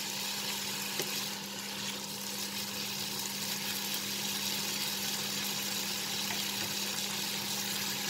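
Smoked bacon sizzling in a nonstick frying pan as its fat renders out, stirred now and then with a wooden spatula. A steady low hum runs underneath.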